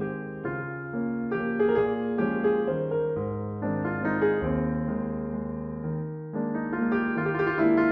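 Background piano music: chords and melody notes held and changing every half second or so.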